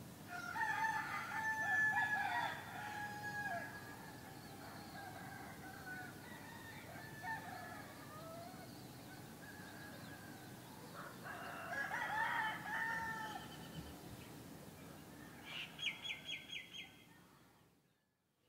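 A rooster crowing twice, once near the start and again about twelve seconds in, over steady low background noise. Near the end comes a quick run of about six short, high chirps, then the sound fades out.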